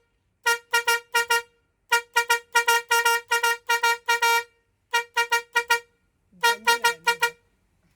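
A vehicle horn tooted in rapid, evenly spaced short beeps, all at one pitch, in four quick bursts with short pauses between them, like a rhythmic horn pattern.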